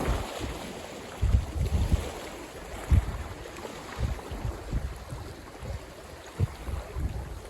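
Strong typhoon wind buffeting the microphone in irregular low gusts, over a steady wash of wind-driven lake water.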